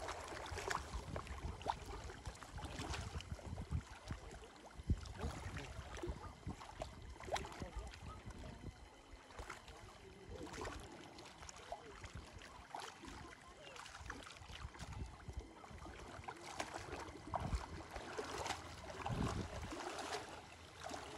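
Shallow lake water splashing and sloshing in small, irregular splashes as people wade through it and grope along the bottom with their hands.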